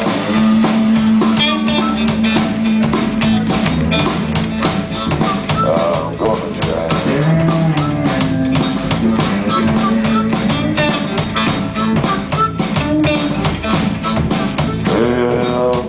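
Live blues band playing an instrumental break between sung verses: guitar lines with sustained, bending notes over a steady drum beat and bass.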